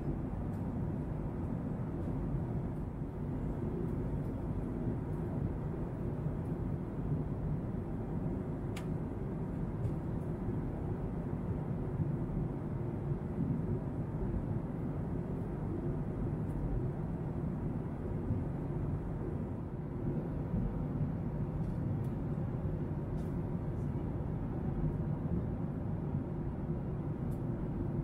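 Steady low rumble of an airliner at cruising altitude, heard inside the passenger cabin.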